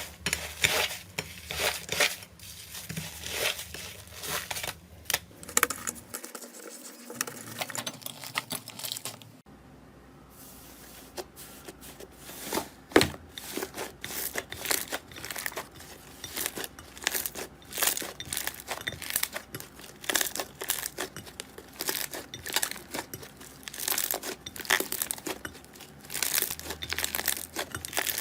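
Slime being worked by hand, giving dense, irregular crackling and popping clicks. The crackling thins out briefly about a third of the way in, then picks up again.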